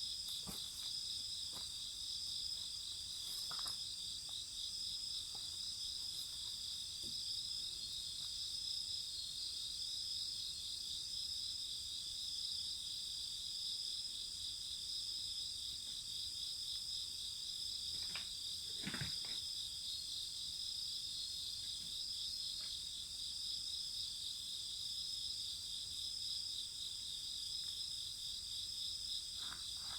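Crickets singing steadily in several high pitches, one of them in a fast pulsing trill, with a few sharp pops from a crackling wood fire, one louder crack about two-thirds of the way through.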